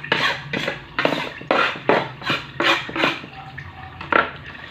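Kitchen utensils and dishes being handled: about ten short knocks and scrapes of a knife, board and dishes at irregular intervals, as chopped onion is cleared away.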